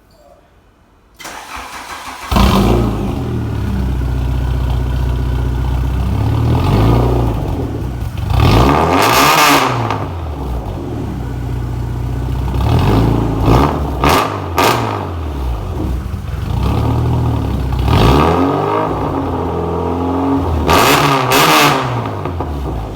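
A 1997 VW Jetta's engine cranks and fires up about two seconds in, then idles loudly through a nearly straight-piped custom exhaust with only a small catalytic converter, revved up and let back down several times.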